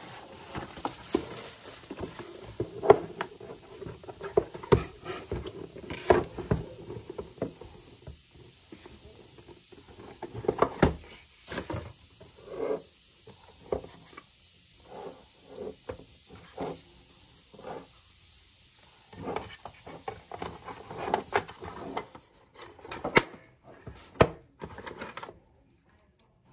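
Irregular rustles, scrapes and taps of cardboard packaging and plastic wrap being handled: an electric toothbrush box slid out of its sleeve and opened, and its parts lifted out.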